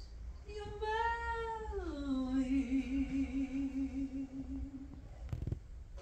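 A woman singing unaccompanied, holding one long note that slides down in pitch about a second and a half in, then sustains with vibrato until about five seconds in. A short knock follows near the end.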